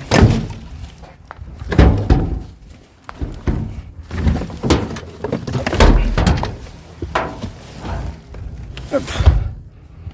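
Rubbish and scrap being handled and moved about in a dumpster: a run of irregular knocks and clunks, with heavier thuds near the start, about two seconds in, around six seconds and about nine seconds in.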